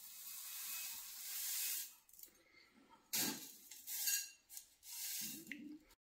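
Granular bonsai substrate poured into a ceramic bowl: a steady grainy hiss for about two seconds, then three shorter bursts of grit pattering into the bowl, cutting off suddenly near the end.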